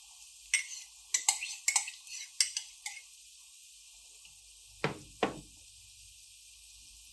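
A spoon clinking and scraping against a cooking pan while stirring, with quick irregular clicks in the first three seconds, then two heavier knocks about five seconds in.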